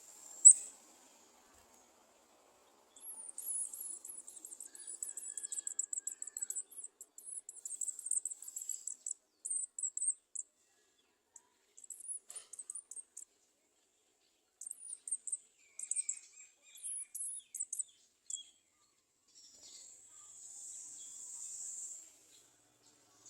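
Garden sunbirds (olive-backed sunbirds) giving very high-pitched, rapid twittering calls and trills in several bursts. A sharp, loud high note comes about half a second in, and a steady high-pitched hiss comes near the end.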